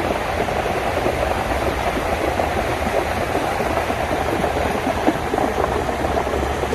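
Steady roar of a monsoon storm: torrential rain with wind rumbling on the microphone, unbroken throughout.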